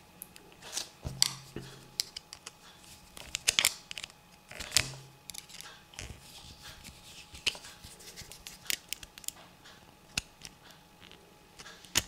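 Irregular light clicks and scrapes of a small screwdriver turning a terminal screw on a plastic alarm door contact, fastening a wire under it, with the handling of the contact and wire.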